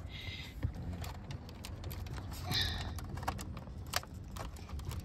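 Small plastic clicks and rattles as a wiring-harness connector and its braided loom are handled and pushed into the back of a dash-mounted climate control module. The connector seats without a clear latch click.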